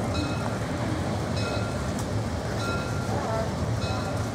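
Bäderbahn Molli narrow-gauge train running on the track: a steady low rumble with a short, ringing metallic click about every second and a quarter.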